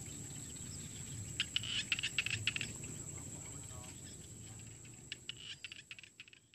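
Nature ambience: a steady high insect drone with clusters of short, quick chirps, fading out near the end.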